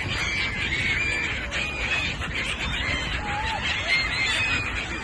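A flock of gulls calling, many short overlapping cries at once, over a steady low background noise.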